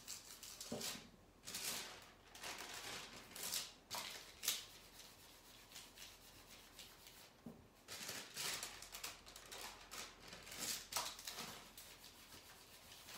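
Small craft iron and a hand rubbing over decoupage tissue paper, a series of faint, irregular swishes, as the tissue is ironed down onto a wooden stool seat.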